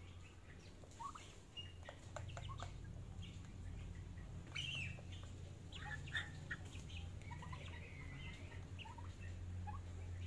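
Young turkeys and chickens feeding together, giving many short high chirps and calls, with a few sharp clicks of beaks pecking at the feed pan.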